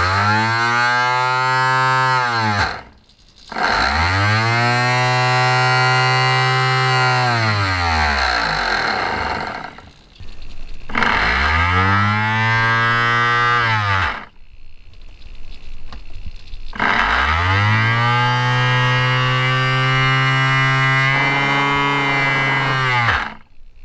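Small brushed electric RC motor, run through a Varispeed servo-operated speed controller, spinning up to a steady whine and winding back down four times, with short pauses between runs.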